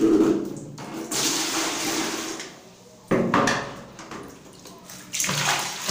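Toilet brush scrubbing and swishing through the water of a ceramic toilet bowl, in several separate bouts of strokes with short pauses between them.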